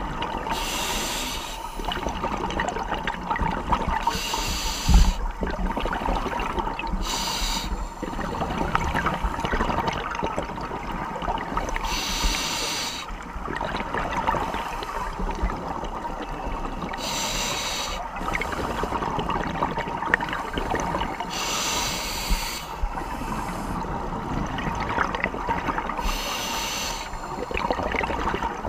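Scuba regulator breathing heard underwater: a hissing breath every four to five seconds over a steady underwater crackle, with a single thump about five seconds in.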